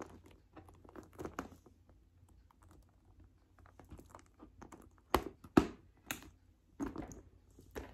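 Handbags being handled: light clicks, taps and rustles, with a few sharper knocks about five to seven seconds in.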